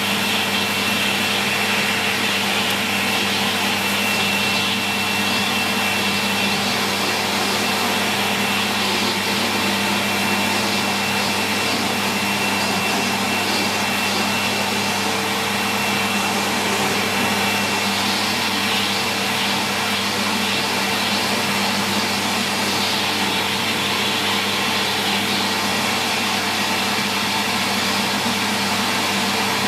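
Sanyo SCA-7AX upright bagged vacuum cleaner running steadily while vacuuming, with a thin high whine that fades out a little over halfway through.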